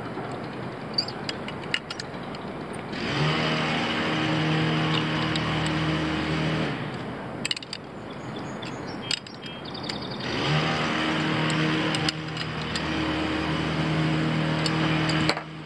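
A neighbour's motorised machine running at a steady pitch in two bursts of about four seconds each, starting and stopping abruptly. Light metal clicks from pliers working a quick link.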